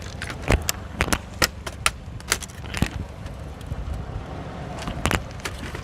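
A laptop's plastic case cracking and snapping under a car tyre: a string of sharp cracks, the loudest about five seconds in, over a car engine's steady low rumble.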